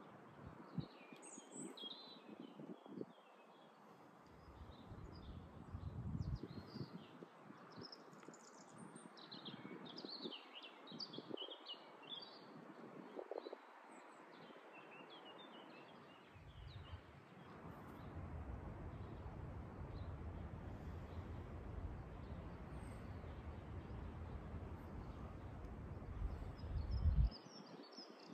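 Songbirds chirping and singing in short, scattered phrases, over a low rumble that comes and goes, holds steady through the second half and stops abruptly near the end.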